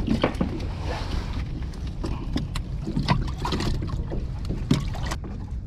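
Scattered knocks and clicks of gear being handled in a small fishing boat, over a steady low rumble of wind and water.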